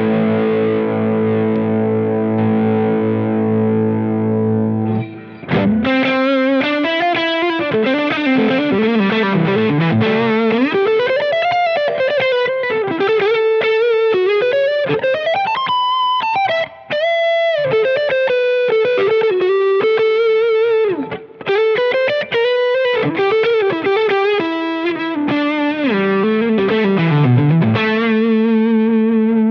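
Umeda UST QM24 electric guitar played through distortion. A held chord rings for about five seconds, then it breaks off and a single-note lead line on the neck pickup begins, with string bends and vibrato, ending on a held note.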